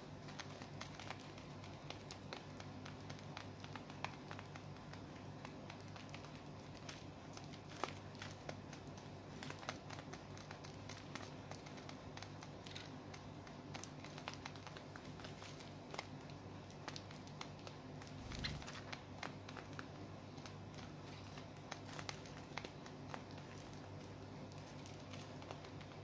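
Gouldian finches and a diamond dove pecking at and husking seed from a dish: a faint, steady stream of small irregular clicks and cracks over a low hum, with one soft bump about two-thirds of the way through.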